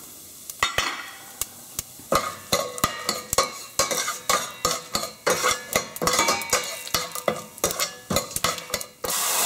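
A metal spoon stirring and scraping cashews and lentils frying in oil and ghee in a stainless steel pan, with frequent clinks over a light sizzle. About nine seconds in, a much louder steady sizzle starts as the ground cilantro and green chili paste goes into the hot oil.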